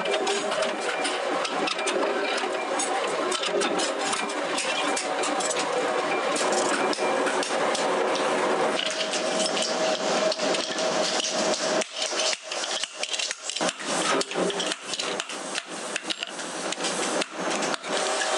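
A flywheel power press runs steadily at first. From about halfway on, a hand hammer strikes steel knife blanks, cut from old saw blades, on a steel anvil block: a quick run of sharp metallic strikes with short gaps between them.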